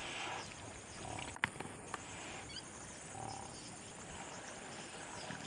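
Hippopotamus grunting a few times over a steady background hiss, with one sharp click about a second and a half in.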